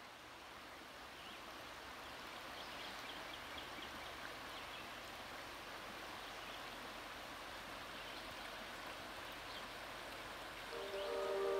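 Shallow river water running over gravel riffles, a steady rushing hiss that fades in over the first couple of seconds, with a few faint short high chirps. Music with sustained tones comes in near the end.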